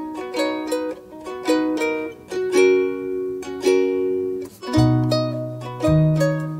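Cheerful instrumental background music of plucked strings in a steady, bouncy rhythm, with low bass notes joining about two-thirds of the way through.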